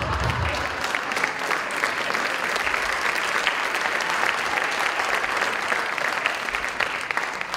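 Audience applauding steadily, a dense patter of many hands clapping, tapering off near the end.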